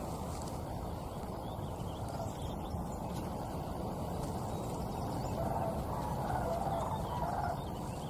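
Sandhill cranes calling in flight, a flock giving rolling, rattling calls that are strongest between about five and seven seconds in, over a steady low rumble.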